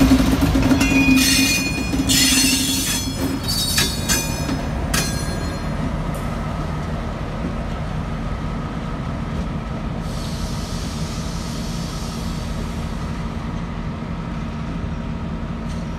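EMD GP38-2 and GP15-1 diesel locomotives running as the train rolls along, with high-pitched wheel squeal in the first few seconds. After that it settles into a steady low engine drone and the rumble of the cars as the train draws away.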